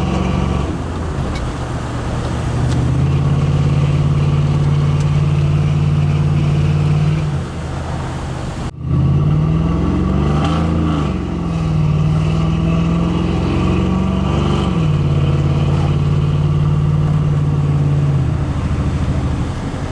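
GM 5.3-litre V8 truck engine running, its pitch rising and falling several times as the revs change, with a brief dropout about nine seconds in. The engine has a random misfire (code P0300).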